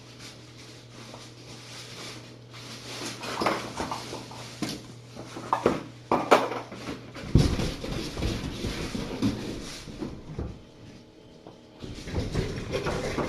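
Handling noises: scattered clicks and knocks for about seven seconds, then a louder, continuous rustling that eases off near the end.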